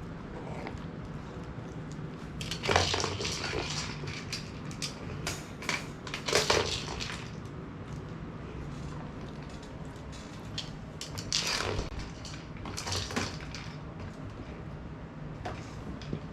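Siberian husky playing with a food-dispensing toy ball: irregular bursts of rattling and clatter from the kibble and toy, with crunching as the dog eats.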